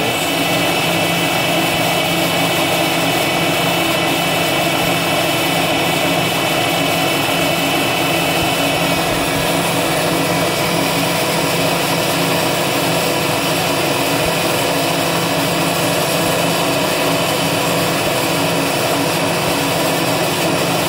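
CNC milling machine spindle running steadily while a small cutter mills a thin aluminium plate: a continuous machine whine made of several steady tones. Some of the higher tones drop away about nine seconds in.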